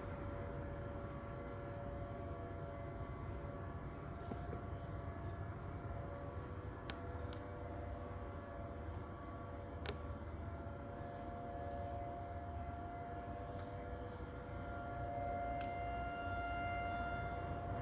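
Distant outdoor warning sirens sounding during a routine test: a steady, sustained wail that slowly swells and fades, growing louder toward the end.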